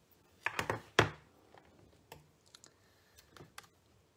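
An ink pad is tapped several times onto a rubber stamp fixed to a Stamparatus's clear plate, re-inking it, ending in a sharper knock about a second in. A few light clicks follow as paper and magnets are handled.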